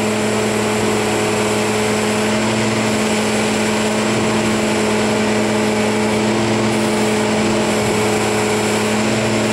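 Diesel engine of a 1994 Tigercat 726 feller buncher running at a steady speed, with a constant hum.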